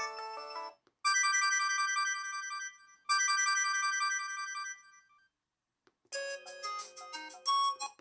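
LG KP100 mobile phone playing its built-in synthesized tones through its small speaker: a previous tone ends in the first second, then a short, bright phrase plays twice with a brief pause between. After a gap of about a second, a different, fuller melody of about two seconds follows.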